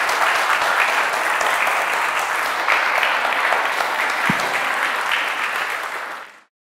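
Audience applauding: steady clapping from a roomful of people, fading out and stopping near the end.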